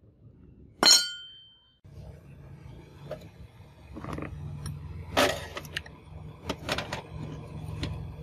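A steel file gives one sharp, ringing metallic clink about a second in that dies away over most of a second. Then, over a steady low hum, comes a string of short metal clinks and scrapes as the file is set into the mouth of a rusty steel forge and pushed in with a metal pipe.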